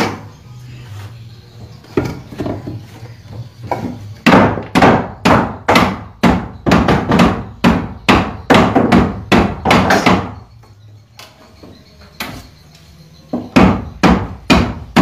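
Repeated sharp knocks, about two a second, as a PVC elbow fitting is tapped and pressed onto a circulation pipe set in a wooden plank wall. The knocking stops for a few seconds and starts again near the end.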